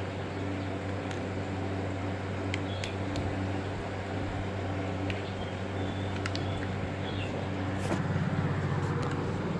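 Steady low mechanical hum, with a few faint light clicks scattered through it.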